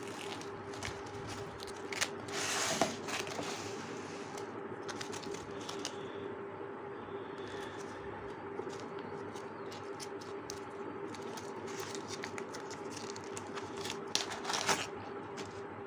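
Clear plastic packaging bags crinkling and rustling as digital sports watches are handled and one is worked in its bag, with louder bursts of crinkling about two seconds in and near the end. A steady hum runs underneath.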